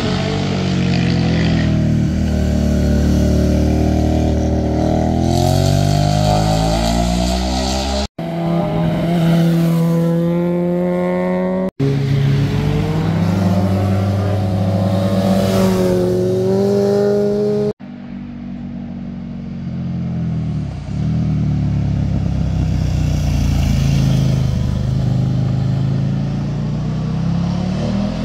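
Motorcycles, mostly sport bikes, riding one after another through tight bends. Their engines rise and fall in pitch as the riders roll off and accelerate. The sound breaks off abruptly three times between passes.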